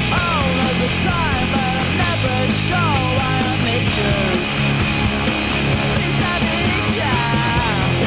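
Loud rock music with distorted guitars, a steady bass line and a lead part sliding and bending in pitch.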